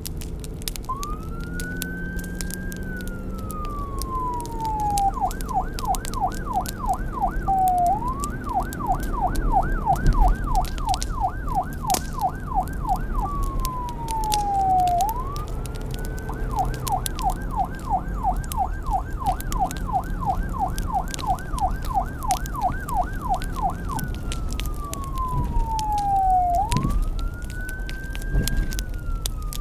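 Electronic emergency siren alternating between a slow wail, rising then falling, and a fast yelp of about four sweeps a second. It runs over a low rumble with many sharp crackling clicks, typical of a fire burning.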